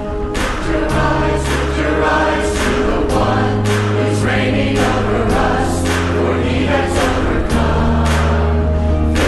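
Church choir of mixed men's and women's voices singing an anthem over instrumental accompaniment, with long held bass notes that change every second or two and a steady beat.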